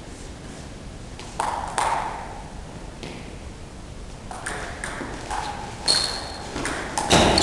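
Table tennis doubles rally: the ball clicking off the bats and the table, echoing in a sports hall. Two hits come early, then a quicker run of hits in the second half, with a louder knock near the end.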